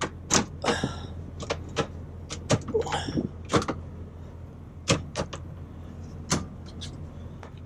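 Plastic fascia trim around a truck sleeper's fridge cubby being tugged at by hand: a string of irregular sharp clicks and knocks, over a steady low hum.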